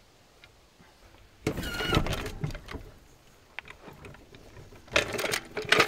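Cordless power tool's electric motor running in two bursts, the first about a second and a half in with a whine that rises as it spins up, the second near the end.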